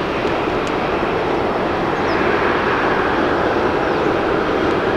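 Jet airliner engines running: a steady, loud rush of engine noise that grows a little louder about two seconds in.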